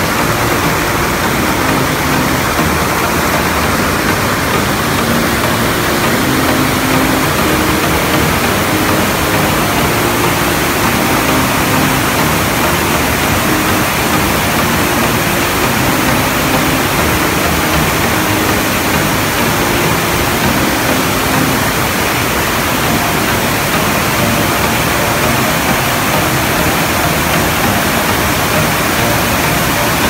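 Rushing water of a rocky river spilling over boulders and small cascades, a steady, even roar of white water.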